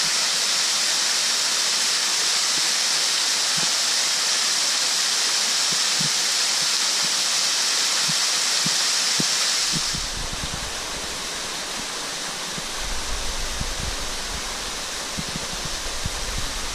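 Waterfall pouring into a rock pool: a steady, loud hiss of falling water that changes about ten seconds in to a softer splashing of a smaller fall. Wind buffets the microphone with a low rumble in the last few seconds.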